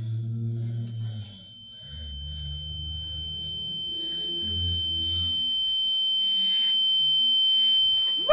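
A single high, steady electronic tone that comes in about a second in and swells steadily louder for several seconds, then cuts off abruptly. A low drone sits beneath it for the first half.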